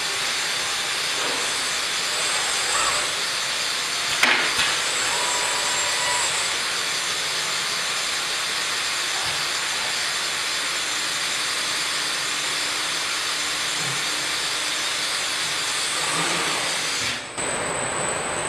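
Steady hissing machine noise from a running CNC wood-machining cell with a robot loader, with a short sharp knock about four seconds in. Near the end the noise cuts off abruptly to a quieter background with a steady high whistle.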